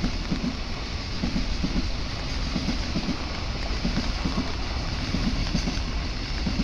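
Freight train of container wagons rolling past, its wheels clacking over rail joints in pairs about once a second, over a steady hiss of rain.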